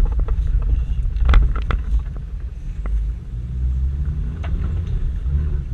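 Toyota Land Cruiser 120 rally car driving hard off-road, heard from inside the cabin: a steady low engine and drivetrain rumble, broken by several sharp knocks and rattles as the car jolts over rough ground, the loudest about a second and a half in.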